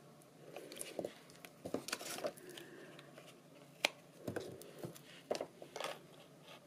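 Faint rustling and tapping of cardstock and double-sided tape being handled and pressed down, with a sharp click about four seconds in.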